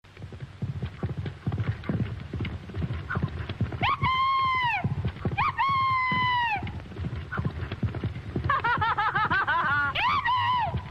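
Horse hooves clattering, with high neighing calls: two long neighs about four and five and a half seconds in, then a quavering whinny near the end.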